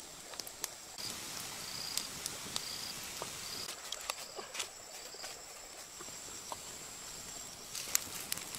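Insects calling in the forest: a steady high-pitched drone, with a short chirp repeating about twice a second through the first half. Scattered sharp clicks and taps sound over it.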